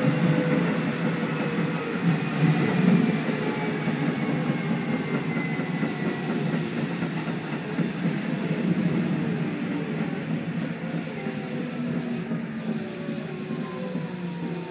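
Keikyu electric train running on the rails, heard inside the leading car: a steady rumble of wheels and car body with the traction motors' whine falling steadily in pitch as the train slows.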